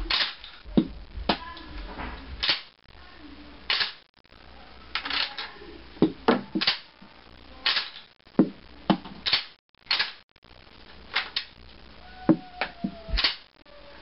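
Remington 1100 Magnum semi-automatic shotgun's bolt racked back by hand and released again and again, cycling dummy rounds: a series of sharp metallic clacks, often in quick pairs. The bolt locks back open each time instead of chambering the next round, which the owner wonders is normal for the gun.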